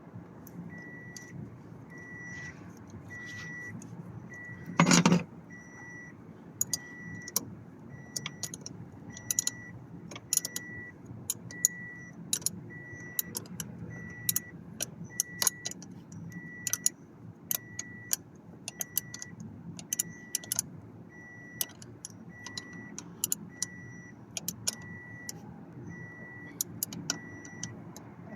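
A high electronic beep repeating evenly, a little faster than once a second, over scattered sharp metallic clicks and taps of hand work, with one louder knock about five seconds in.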